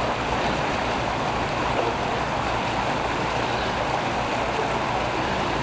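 Floodwater of a creek rushing steadily through and out of a concrete storm-drain culvert, a constant hiss of flowing water with no change in level.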